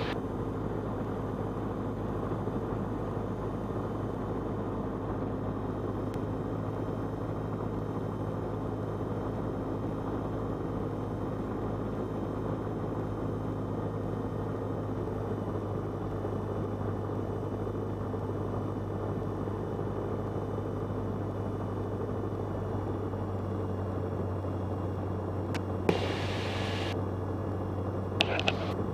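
Cessna 172's piston engine and propeller droning steadily as heard inside the cockpit, with two brief higher-pitched sounds near the end.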